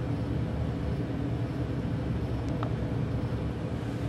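Steady low background rumble with a faint click about two and a half seconds in.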